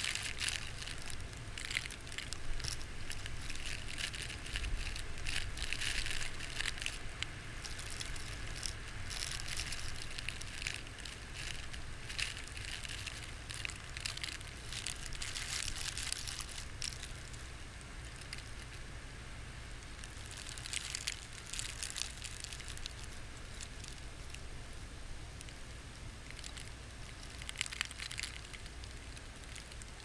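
Blizzard wind buffeting the microphone with a steady low rumble, while wind-driven snow crackles and patters against the camera, heaviest in the first half and again in short gusts later on.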